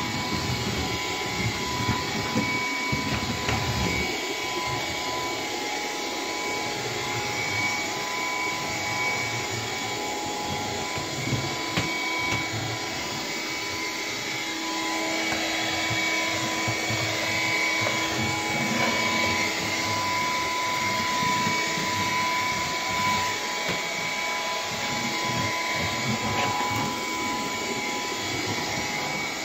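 Bissell PowerGlide cordless stick vacuum running on low power with the brush roll off, a steady airy hiss with a thin motor whine, as it is pushed over a hard floor.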